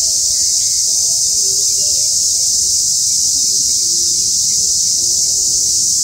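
Steady, high-pitched drone of an insect chorus, unbroken throughout.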